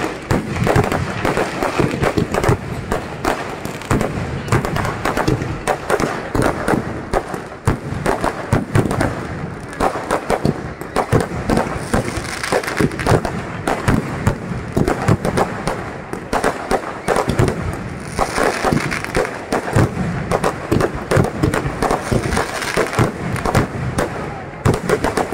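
Aerial fireworks display: a dense, unbroken barrage of shells bursting overhead, with rapid bangs and crackling many times a second.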